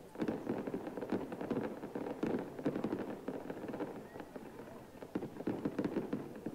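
Fireworks display: a rapid, dense crackle of many pops and bursts, easing briefly about four seconds in before picking up again.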